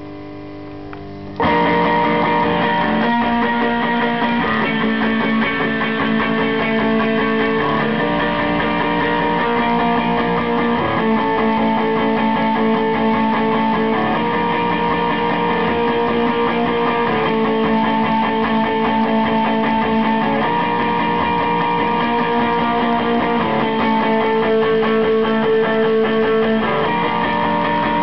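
Loud rock music led by electric guitar chords, coming in suddenly about a second and a half in after a quieter held note, with the chords changing every second or two.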